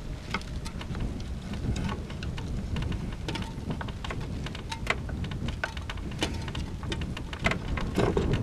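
Wood chisel paring a thick slice off a piece of wood, giving irregular crackling clicks, over a steady low rumble of wind buffeting the microphone.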